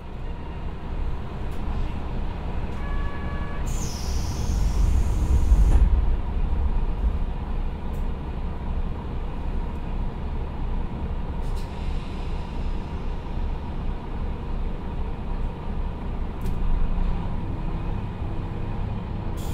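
Recorded inside a JR Kyushu KiHa 125 diesel railcar: its Niigata DMF13HZ diesel engine is running at a standstill. A short beep comes about three seconds in, then a loud hiss of released compressed air, and a shorter hiss around twelve seconds in as the railcar gets under way.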